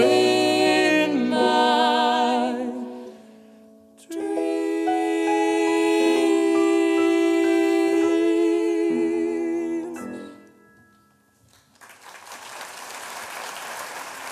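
Show-tune singing with vibrato and instrumental accompaniment finishes a phrase. After a short pause the song's final sustained note and chord hold for about six seconds and stop. Audience applause begins a couple of seconds later.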